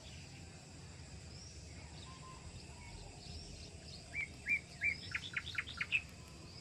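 Songbirds calling: faint high chirps at first, then a few short whistled notes from about four seconds in and a quick run of about six notes near the end, over a faint steady background hiss.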